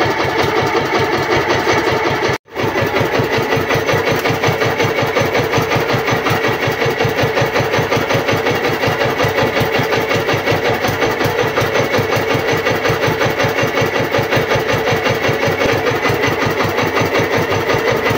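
Small fishing boat's engine running steadily at low speed with an even, rapid beat. The sound cuts out briefly about two and a half seconds in.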